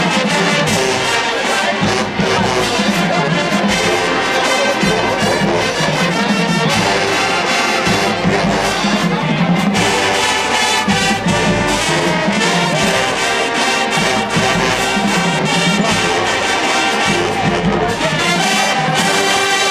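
HBCU marching band playing loudly, a massed brass section of trombones and trumpets carrying the tune over steady drum hits.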